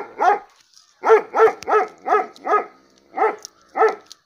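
Dog barking in quick runs of about three barks a second, with a short pause just under a second in and again about three seconds in.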